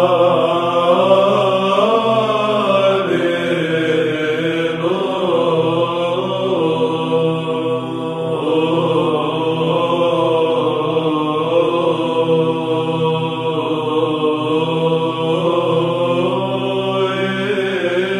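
Byzantine choir chanting: a melody that rises and falls over a steady held drone note (the ison).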